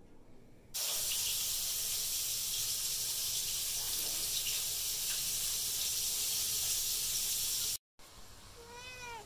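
A loud, steady hiss that cuts in about a second in and cuts off abruptly near the end. A cat gives a short meow just before the end.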